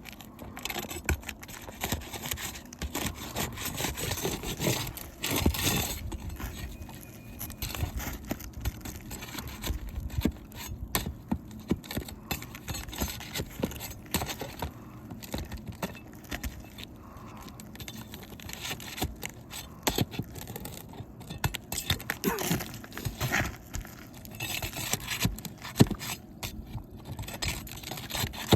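Irregular scraping with scattered clicks and knocks as a tool is worked under an asphalt roof shingle to pry it loose.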